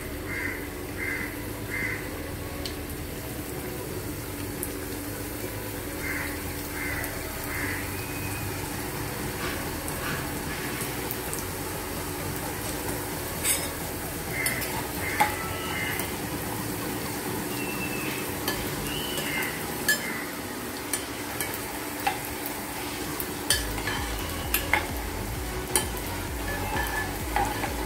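Rava (semolina) chips deep-frying in hot sunflower oil in a metal pan: a steady sizzle. From about halfway on, a steel ladle stirs them and clinks sharply against the pan now and then.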